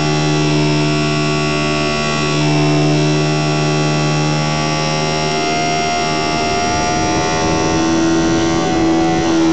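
Electric motor and propeller of a HobbyZone Super Cub RC plane whining steadily in flight, picked up by a camera on the airframe. The pitch steps a little a couple of times.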